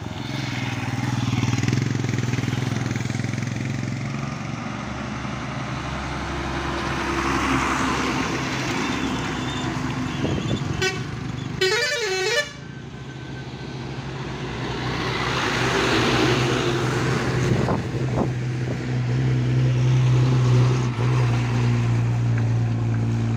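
Engines of heavy vehicles and a motorcycle running on a steep hairpin road, a steady low engine tone that grows strongest near the end as a loaded lorry climbs past. Near the middle a vehicle horn gives a short toot and then a warbling multi-tone blast about a second long.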